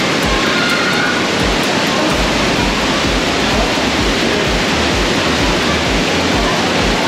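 Waterfall: a loud, steady rush of falling water, with regular low thumps about three times a second from about two seconds in.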